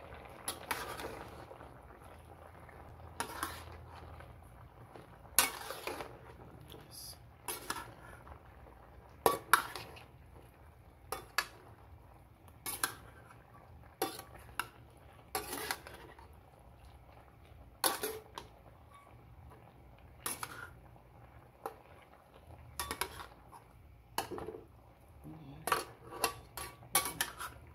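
Spatula scraping and clanking against a wok while stirring pork and sliced bottle gourd, in irregular sharp strokes about every second or two.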